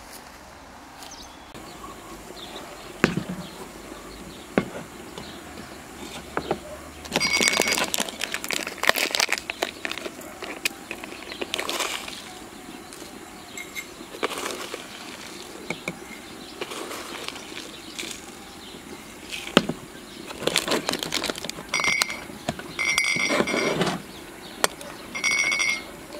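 Metal tea tins and teaware handled on a table: repeated taps, clinks and knocks, and short scraping squeals of a tin lid being worked off and on, several times. Loose tea is tipped from a tin into a ceramic teapot.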